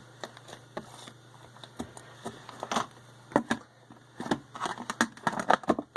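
Butter slime being poked and squished by hand: a run of small, irregular clicks and crackles that grows denser in the last couple of seconds.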